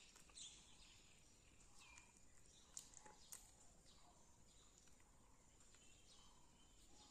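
Near silence: faint background hiss with a few faint high chirps and soft ticks.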